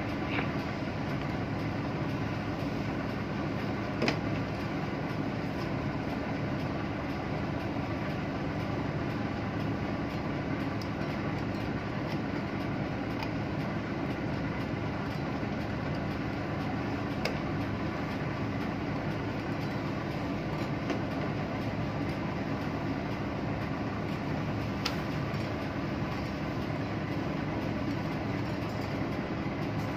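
Steady drone of ship's machinery, an even hum with several steady low tones, with a few faint clicks as plastic terminal blocks and wiring are handled.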